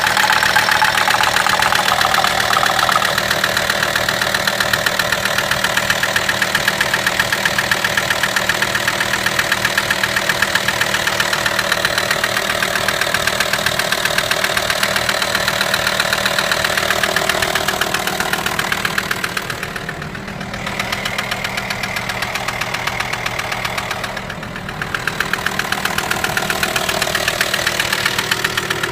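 VW T5's 2.5 TDI five-cylinder diesel (AXD) running with a fast, even knocking rattle, the mysterious engine noise whose cause has not yet been found. Twice near the end the sound briefly dips quieter.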